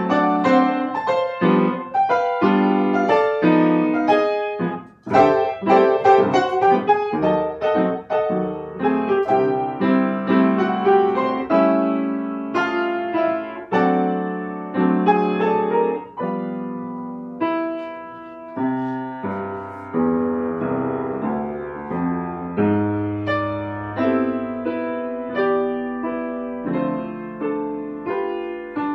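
Solo piano playing a song in full chords with a melody on top. There is a brief break about five seconds in, and the second half moves to slower, longer-held chords.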